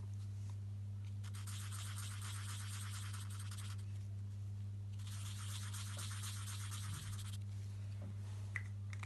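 Black marker scratching on paper while pupils are coloured in on paper circles, in two stretches of a couple of seconds each. A steady low hum runs underneath.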